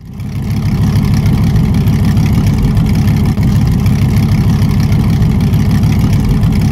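Big V10 engine, the 8-litre Dodge Viper V10 of the Millyard Viper motorcycle, running steadily at a low, even speed. It fades in over the first half-second.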